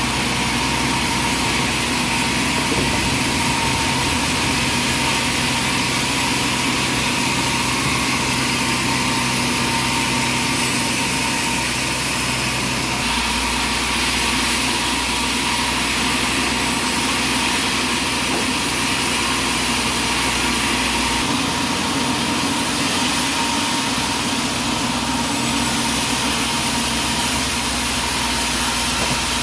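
Sawmill machinery running steadily, an engine-driven hum with a constant whine. The low and high parts of the sound shift abruptly a few times, about 10, 13 and 21 seconds in.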